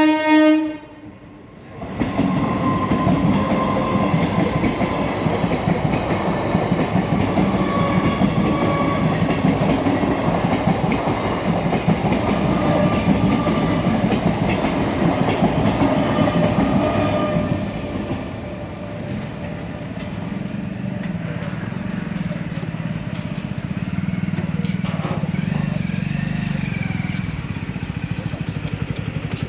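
A train horn blast ending about half a second in, then a train passing close by, its wheels running loud and steady on the rails. After about seventeen seconds it drops to a quieter low rumble.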